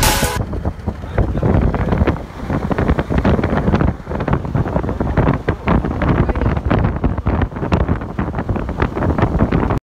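Wind buffeting the phone's microphone inside a car moving at highway speed, a loud uneven rumble with constant crackling gusts over the road noise.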